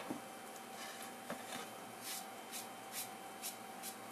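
Faint rubbing strokes on a kitchen counter, about two a second in the second half, with a few light clicks before them. A faint steady hum runs underneath.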